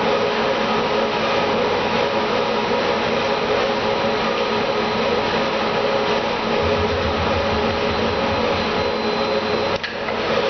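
A motor-driven machine running steadily with a hum. A low throb joins for about two seconds partway through, and the noise dips briefly near the end.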